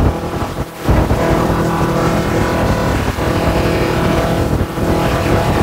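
KRX ultrasonic cleaner running its glasses cleaning cycle with water in its tank: a loud, steady buzz with a brief drop just under a second in.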